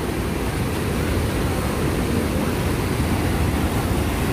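Steady rush of sea waves breaking against coastal rocks, with wind buffeting the microphone.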